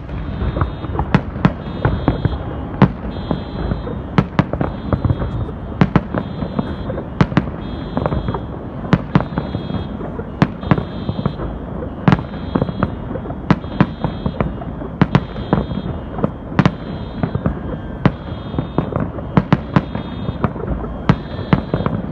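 Aerial fireworks going off in quick succession: sharp bangs, often one or two a second, over a continuous low rumble of launches and bursts.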